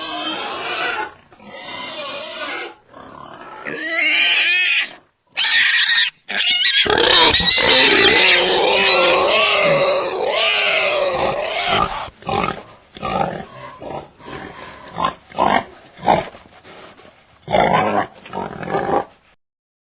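Wild boar calling, in a string of separate recordings. About seven seconds in, a long, loud stretch of high, wavering calls runs for about five seconds, followed by a run of short calls.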